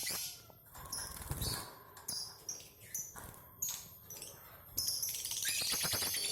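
Lovebirds calling in short, high chirps, then a long, rapid, rattling trill starting near the end: the lovebird's 'ngekek' song.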